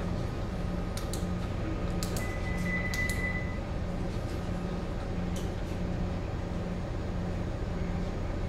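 Steady low machinery hum aboard a gas tanker, heard from the bridge, with a pulse beating a little under twice a second. A short high-pitched tone sounds about two seconds in, with a few faint clicks.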